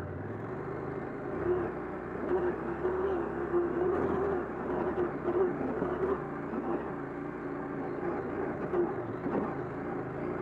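Husqvarna Norden 901's parallel-twin engine running as the motorcycle is ridden slowly along a rough dirt track, its note wavering with the throttle.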